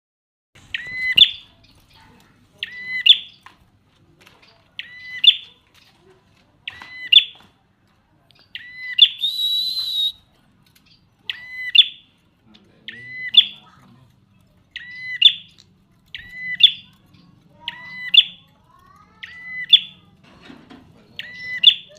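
Prinia calling: a short, sharp call repeated about every one and a half to two seconds, about a dozen times, with one longer, harsher buzzing call near the middle.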